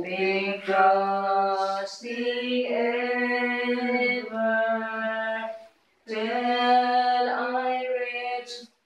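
A single unaccompanied voice singing a slow, chant-like devotional melody in long, steady held notes, phrase after phrase, with a brief break for breath about six seconds in.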